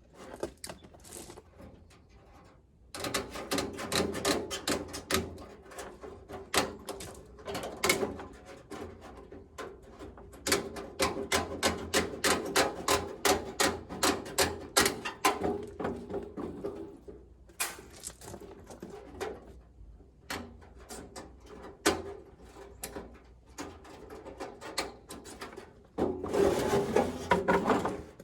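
A staple gun firing staples in quick succession, about three shots a second at its fastest, fastening wire hardware mesh, with a short scraping rustle near the end.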